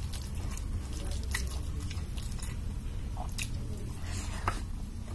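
Fingers squishing and mixing wet rice and dal on a plate, then wet chewing and lip-smacking as a handful is eaten: scattered sharp, moist clicks over a steady low hum.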